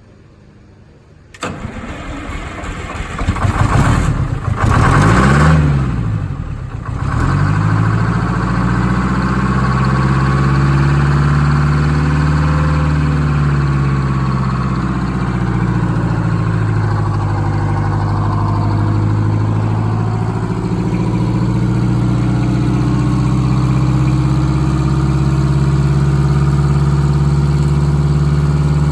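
Eagle bus diesel engine cranking and catching about a second in, revving up and down twice, then settling into a steady idle. It is started to check that the fuel system, opened up to move the fuel lines, has not lost its prime.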